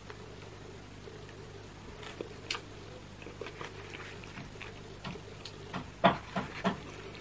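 Roast chicken being torn apart by hand: soft, moist crackles and small clicks of skin and meat pulling away, with a cluster of sharper, louder crackles about six seconds in as a large piece comes off. A steady low hum runs underneath.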